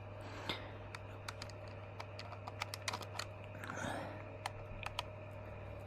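Light, irregular clicks of the Adox 300 camera's aperture and shutter-speed settings being turned through their detents, with brief rustles of the camera being handled.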